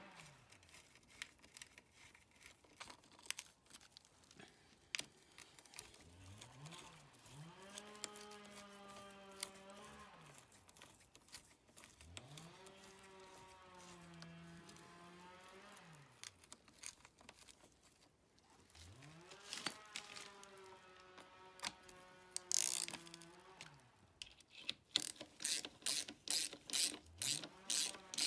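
Ratchet wrench clicking in quick, even strokes near the end while tightening bolts on the clutch cover, after scattered small metallic clicks. Several times, a long, low, drawn-out tone rises, holds and falls in pitch.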